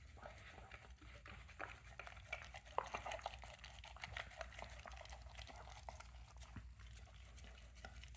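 Dog eating, licking and chewing food: faint, irregular wet smacks and small clicks.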